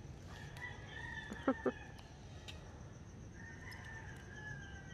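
Two faint rooster crows, each a long held call of about a second and a half, the second starting about three and a half seconds in. Two short sharp clicks come near the end of the first crow.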